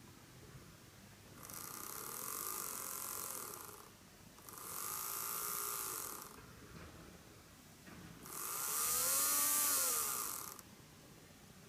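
Powered bogie of a KATO KiHa 25 1000-series N-gauge railcar's motor unit, run three times, giving a whirring whine that rises and then falls in pitch with each run. The noise comes from the bogie, not the motor.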